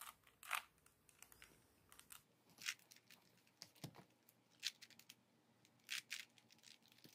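Plastic 3x3 Rubik's Cube being turned by hand: faint, short scratchy clicks of the layers turning, at irregular intervals of about one a second.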